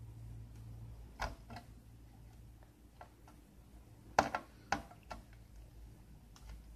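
A few short, sharp clicks and taps of tools being handled against a circuit board during desoldering, the loudest pair about four seconds in, over a faint low hum.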